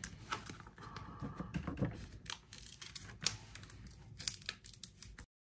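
Clear vinyl transfer tape crinkling and crackling as hands press it down and peel it back over a vinyl decal on a wooden board, with a few sharper snaps. The sound cuts off abruptly near the end.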